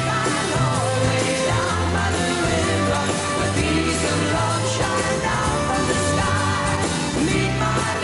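A 1960s pop record playing: a singer over a band with a steady bass line.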